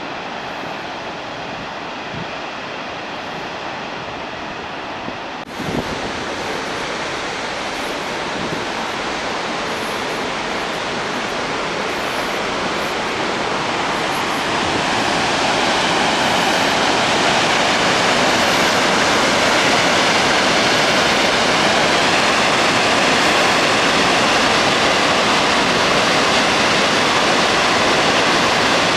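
Floodwater released from the Ikari Dam, a concrete gravity dam, rushing out in a steady dense noise. It jumps abruptly about five seconds in, then grows louder over the next several seconds and holds.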